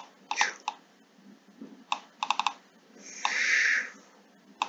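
Computer mouse and keyboard clicks, with a quick run of four clicks about two seconds in, then a hiss lasting about a second.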